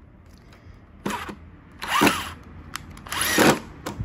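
Bosch GDR 120-LI 12 V cordless impact driver run in three short trigger bursts on a screw set in wood, its motor pitch rising and falling within each burst.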